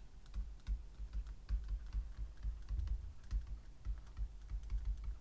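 Stylus tapping and scratching on a pen tablet while handwriting, a faint run of light, irregular clicks with soft knocks.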